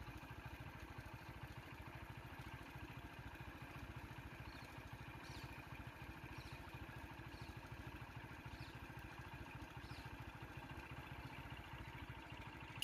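Vehicle engine idling steadily, with a few faint high chirps about once a second partway through.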